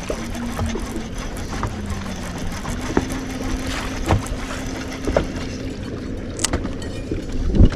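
Fishing boat on the water, with repeated sharp knocks and slaps about once a second over a steady wash of noise. A low hum runs underneath, dipping in pitch about two seconds in and rising again near three seconds.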